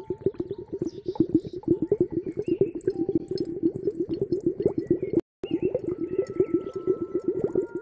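Clear glass ASMR cup (a 'rhythm wind-chime cup') worked against the microphone in rapid rhythmic strokes, giving a fast run of hollow, wet-sounding pops and taps many times a second. The sound cuts out for a moment about five seconds in.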